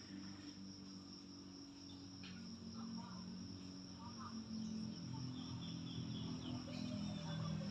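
Crickets trilling in one steady high tone, over a low hum that grows louder toward the end, with a few faint bird chirps in the middle.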